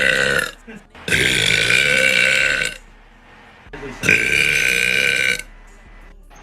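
A woman burping loudly: one long burp trails off about half a second in, then two more long burps follow, each lasting more than a second, the second about three seconds after the first.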